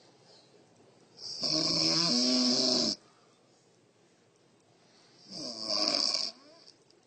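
A woman snoring loudly in her sleep, two snores: a long one about a second in and a shorter one near the end, with a quiet pause between them.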